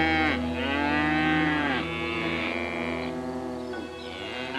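Cattle mooing: a string of drawn-out moos, one after another with short gaps, each bending in pitch and fading out at the end.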